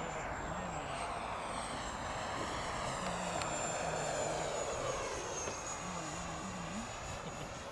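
Electric ducted-fan RC jet (64 mm fan) making a fast low pass: a high-pitched fan whine over a rushing noise that swells as it goes by and fades near the end.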